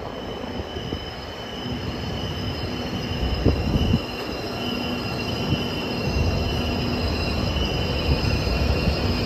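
H5 series Shinkansen train pulling slowly into the platform, a steady high-pitched squeal over a low rumble, with a couple of knocks around the middle and the rumble growing stronger in the second half.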